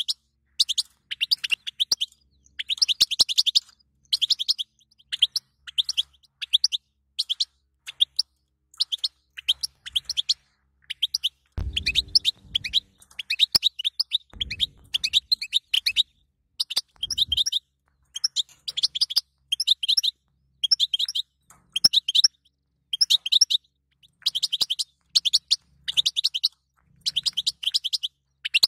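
European goldfinch twittering: quick, high chirps and trills in short phrases, one after another with brief pauses between them.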